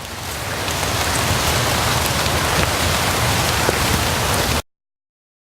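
Steady rain falling, with faint scattered drop ticks, swelling a little over the first second and then cutting off suddenly near the end.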